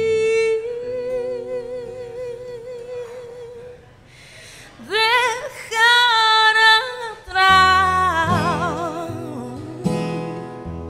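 A woman singing a wordless line over acoustic guitar: a long held note that fades away, then a sweep up into high notes with vibrato that wind back down. Strummed acoustic guitar chords come in strongly about halfway through.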